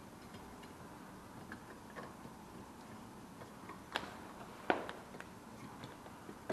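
Small clicks and taps of a metal electrical box being handled while cable is fed into it. The two sharpest knocks come about four seconds in and again just under a second later.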